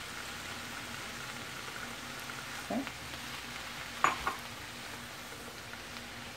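Mixed vegetables sautéing in olive oil in a skillet, a steady sizzle, as diced bell peppers are tipped in and stirred. A few short knocks of the utensil against the pan come a little before the middle and again just after it.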